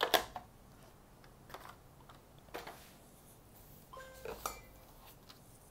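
Hard plastic knock as a phone charging brick is set into the box's plastic tray, followed by a few lighter clicks and knocks of handling.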